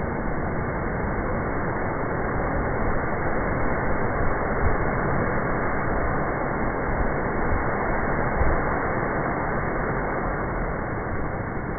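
Heavy sea surf breaking into a rocky coastal inlet: a steady, dense roar of crashing water and spray with a low rumble underneath and only small swells in loudness.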